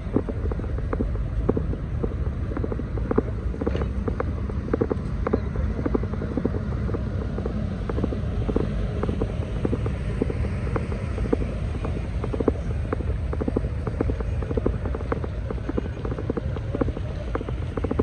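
Heavy rain falling, with many drops ticking sharply and irregularly, over a steady low rumble.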